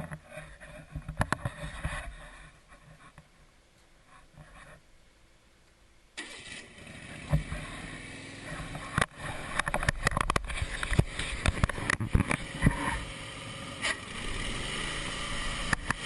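Scattered knocks and scrapes, then about six seconds in the Wood-Mizer LT15 sawmill's engine comes on suddenly and runs steadily, with clatters and knocks over it.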